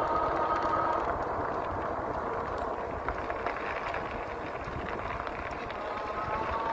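E-bike ride heard from the handlebars: wind rumbling on the microphone over tyre noise on the road. The electric assist motor's steady whine fades out about a second in and comes back near the end.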